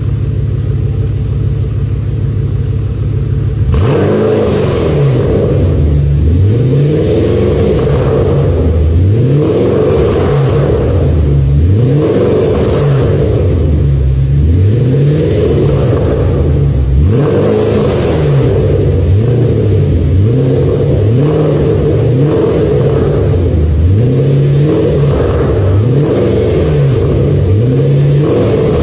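2006 Audi RS4 (B7) 4.2-litre V8 through a de-catted, straight-piped stainless steel exhaust, idling for about four seconds and then revved again and again in short blips, the pitch rising and falling each time. Crackles and pops come from the exhaust as the revs drop.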